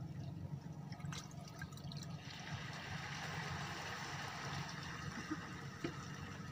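Water trickling and splashing, growing louder about two seconds in, over a steady low motor hum.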